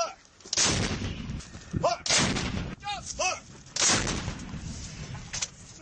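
M777 155 mm towed howitzer fire: three heavy booms about a second and a half apart, each trailing off in a rumble, with short high calls in between.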